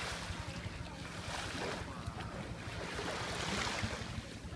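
Sea water washing and lapping, with wind buffeting the microphone.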